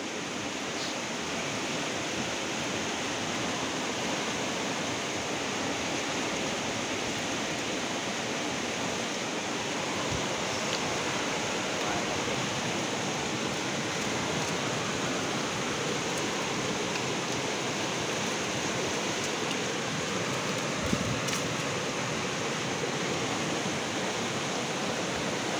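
Fast-flowing river current rushing over rocks: a steady, unbroken wash of water noise, with a couple of faint knocks partway through.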